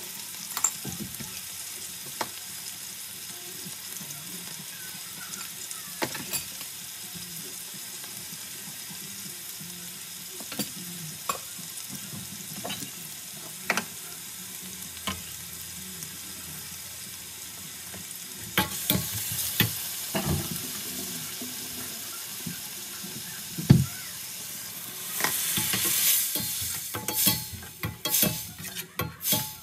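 Sliced onion and garlic sizzling in hot oil in a stainless-steel pan, with a metal slotted spatula scraping and clicking against the pan now and then. Near the end the hissing surges louder as liquid goes into the pan.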